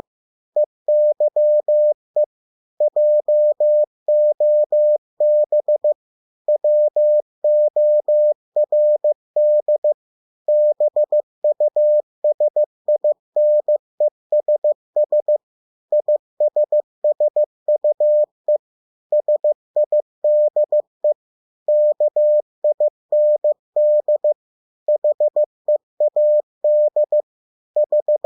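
Morse code sent as a single steady mid-pitched beep, keyed into dots and dashes spelling English words at 15 words per minute, with short pauses between the words.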